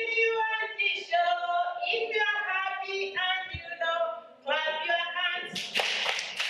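Young children and a female teacher singing a song together without accompaniment. Near the end, hand clapping comes in.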